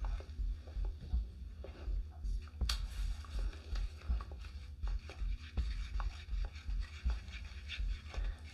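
Resin being stirred in a mixing cup: irregular dull knocks and scraping of the stirrer against the cup, two to three a second, with one sharper click about two and a half seconds in.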